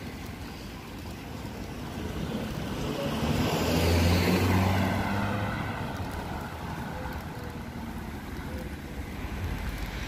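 A car passes close by, rising to its loudest about four seconds in with engine hum and tyre noise, then fading as it drives away, over steady street traffic noise.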